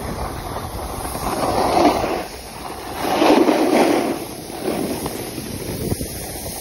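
Snowboard sliding and carving over groomed snow: a steady scraping hiss that swells twice with the turns, mixed with wind noise on the microphone.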